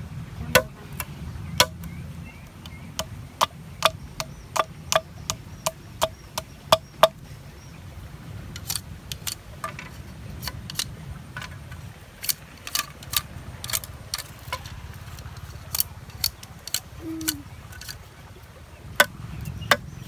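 A machete blade cutting and knocking against a thin wooden stick and log, making sharp wooden clicks. There is a fairly even run of about two a second, then more scattered strokes, over a steady low rumble.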